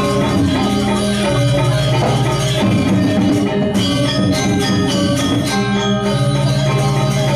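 Balinese gamelan playing dance music: layered metallic pitched tones over low sustained notes that shift every second or two, with a run of sharp strokes about three to six seconds in.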